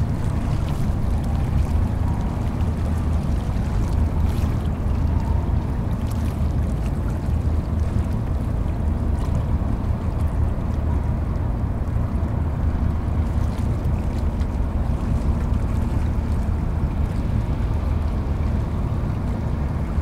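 Harbour tugboat's engines running steadily under way, an even low drone.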